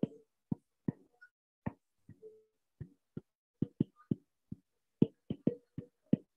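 Stylus tapping and clicking on a drawing tablet during handwriting: a run of short, sharp, irregular taps, about two to three a second.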